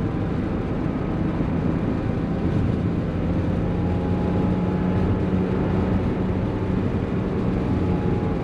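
Air-cooled 3.2-litre flat-six of a 1987 Porsche 911 Carrera running at a steady engine speed under way, heard from inside the cabin over a steady rush of road noise.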